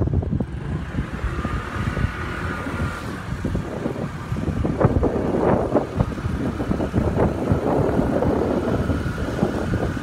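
Wind buffeting the phone's microphone in gusts, a ragged rumble that grows stronger about halfway through.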